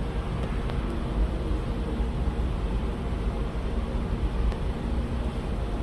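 Steady low rumble under an even hiss from a Hitachi elevator running.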